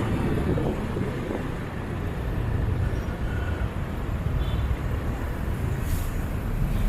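Street traffic with vehicle engines rumbling steadily as they pass, with no horn standing out.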